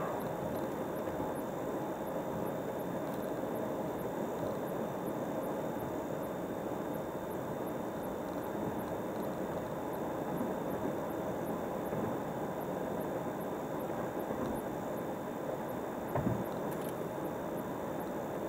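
Steady road and engine noise of a car driving along a highway, with a faint high ticking about three times a second and a single brief thump about sixteen seconds in.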